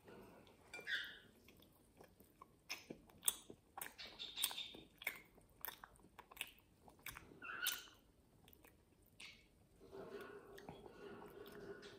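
Close-up chewing of a mouthful of flaky pastry, with scattered wet mouth clicks and smacks. Near the end a faint steady hum comes in.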